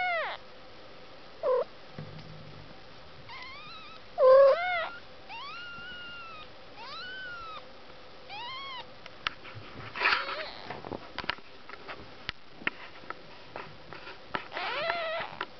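Newborn kittens mewing: about nine short cries that rise and fall in pitch, one louder near the start and a last one near the end, with scattered clicks and a brief rustle partway through.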